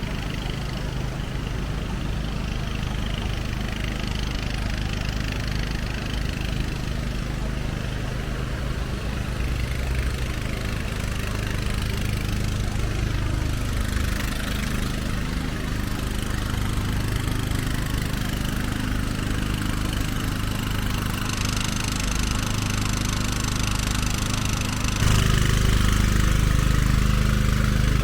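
A motor vehicle's engine idling steadily, with a low even hum, and growing louder about 25 seconds in.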